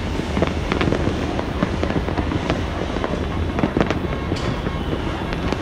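Many fireworks and firecrackers going off at once across a city: a dense, unbroken run of pops and bangs at irregular intervals over a steady low rumble.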